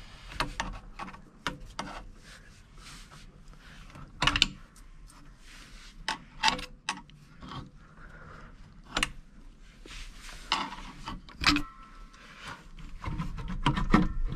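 Hand work on a rubber intake hose and its metal fittings: a hose pick tool scraping and clicking while the hose is twisted onto its connection, heard as irregular clicks, light knocks and rubbing.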